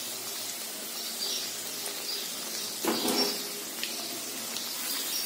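Hot oil sizzling softly in a kadhai as fried manchurian balls are lifted out with a wire skimmer, with a few small clicks and one short louder sound about three seconds in.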